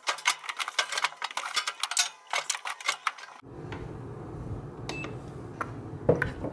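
A quick run of clicks and clatter from household handling for about three seconds. Then a steady low hum of an electric kettle switched on to heat, with one short beep from its control panel.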